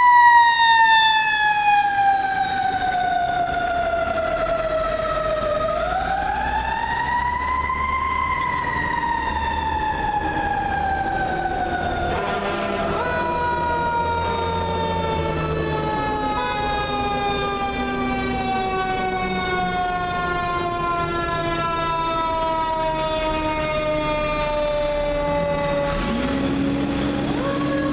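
Federal Q mechanical siren on a fire engine wailing: it winds up twice to a high pitch and coasts down in long falling wails, over a low engine rumble. A lower rising tone starts near the end as the trucks pass close.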